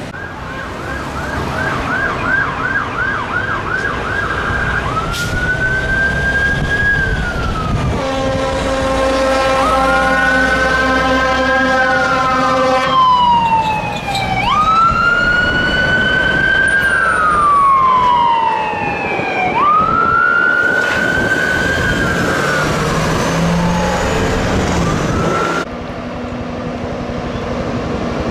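Fire apparatus electronic sirens: a fast yelp for the first few seconds, then a series of slow wails that rise and fall, with an air horn held for several seconds in the middle. The siren pitch drops suddenly as a vehicle passes, and near the end the sirens stop, leaving a low engine.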